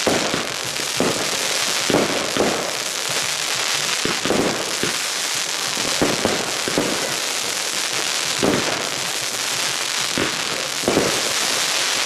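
Consumer firework batteries (cakes) firing: irregular sharp launch thumps about every half second to second over a continuous crackling hiss of bursting effects.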